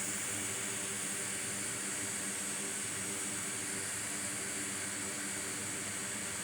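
Steady fan hiss with a constant low hum from repair-bench equipment, unchanging throughout.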